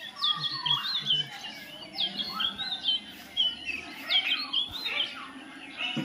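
Parakeets chirping in a string of quick, high calls, with a few lower squawk-like calls among them.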